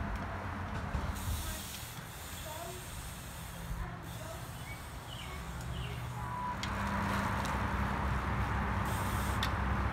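Outdoor ambience: a steady hiss with a few faint bird chirps, then, from about two-thirds of the way in, a louder steady rush of road traffic.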